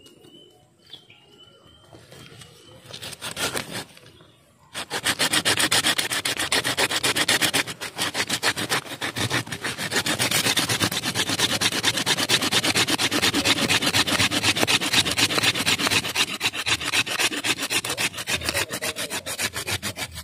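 Hand saw cutting through a woody tree stem, starting about five seconds in with rapid, steady back-and-forth strokes that pause briefly and then carry on. The top of the trunk is being sawn off.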